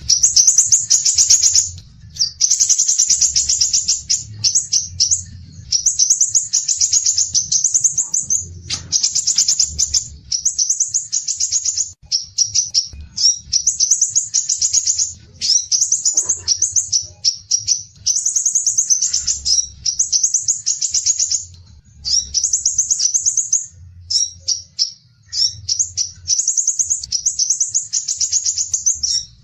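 A songbird singing rapid, very high-pitched chattering trills in phrases of one to two seconds, one after another with short pauses.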